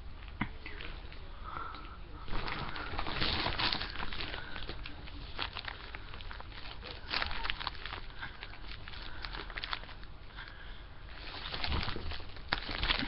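Rustling and soft irregular clicks close to the microphone, over a steady low hum, with louder stretches of rustling about two seconds in, around seven seconds, and near the end.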